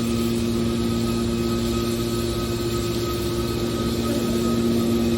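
Hydraulic horizontal metal baler's power unit running with a steady, even hum at a constant pitch.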